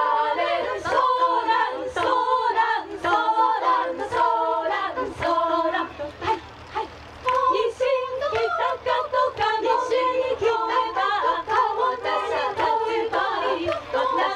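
Women's choir singing a Japanese song a cappella, several voices in harmony, with a sharp beat about once a second and a brief drop in the singing about halfway through.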